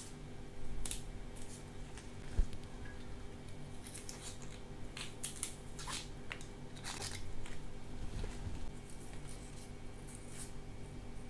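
Food being cut in a kitchen: irregular crisp snipping and slicing sounds, with one sharp knock about two and a half seconds in.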